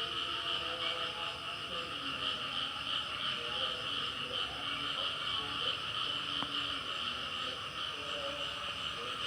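A dense night chorus of frogs, with insects, calling without a break: a steady high shrill trilling over many overlapping shorter croaks lower down.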